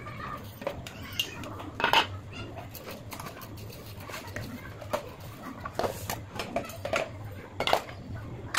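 Pots, pans and lids clattering and knocking against each other as dishes are washed by hand, with irregular sharp clanks, the loudest about two seconds in and several more in the second half.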